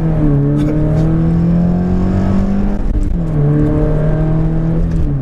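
Subaru BRZ's 2.0-litre flat-four engine, on a stage 1 tune, under hard acceleration: the pitch climbs steadily through a gear, drops at an upshift about three seconds in, climbs again and drops at another shift at the very end.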